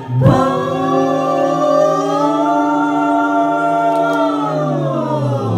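A cappella vocal group singing, holding a sustained chord that slides down in pitch near the end.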